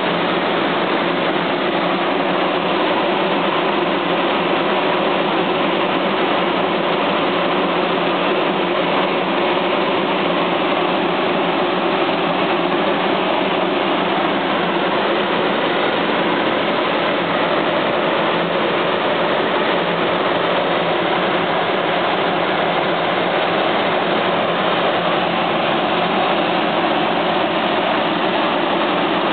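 Corn grain dryer's large fan and burner running steadily: a loud even rush of air with a low hum under it.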